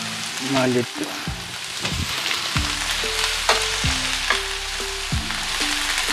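Chopped onions sizzling as they sauté in hot oil in a pan.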